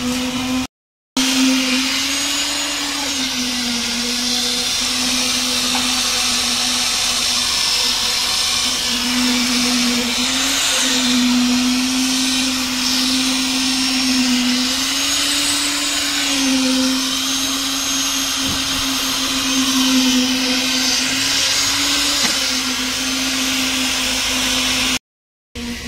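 Handheld electric concrete needle vibrator running in wet slab concrete: a steady motor hum whose pitch dips and recovers several times, over a hiss.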